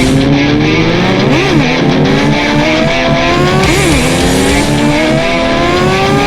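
Motorcycle engine accelerating, its pitch climbing steadily with two quick up-and-down blips, over rock music with guitar.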